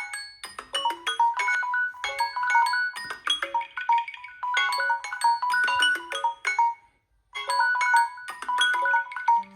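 Samsung Galaxy phone alarm tone: a bright melody of short struck, ringing notes repeating in phrases. It breaks off for a moment about seven seconds in, then starts again.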